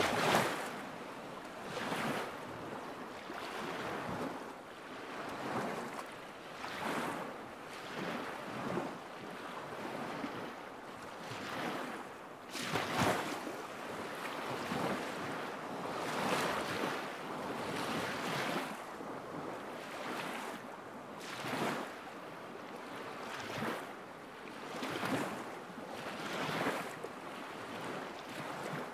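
Small lake waves lapping at the shore, a soft splash every second or two.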